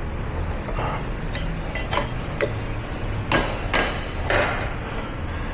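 Steel struck with a hammer: a series of about eight light metallic taps and clinks, each with a brief ring, the loudest two a little past three seconds in.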